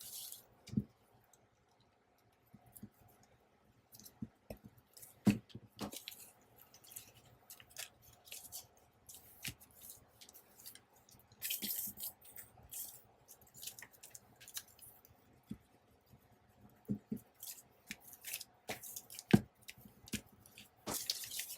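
Paper being handled and pressed down: scattered small taps, clicks and soft rustles, with a longer papery rustle about twelve seconds in.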